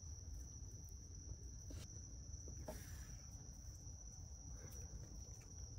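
Quiet room tone: a faint, steady high-pitched whine over a low hum, with a couple of faint ticks.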